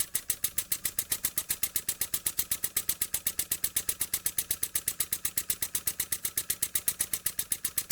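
Jowitt Major poppet-valve model steam engine running on compressed air, its exhaust giving a rapid, even chuff of about ten beats a second.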